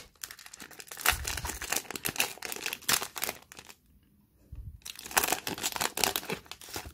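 Foil wrapper of a Pokémon Sword and Shield booster pack being crinkled and torn open, in two stretches of crackling with a pause of about a second in the middle.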